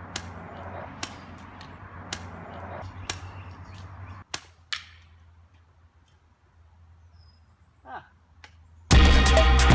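Sharp clicks about once a second over a steady hiss, then a couple more clicks and a quieter stretch. Loud electronic music with a heavy beat starts near the end.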